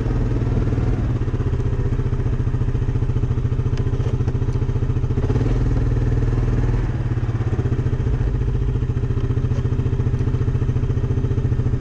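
Yamaha Kodiak ATV's single-cylinder four-stroke engine running steadily while the quad is ridden, heard close up from the front of the machine, with a few faint clicks.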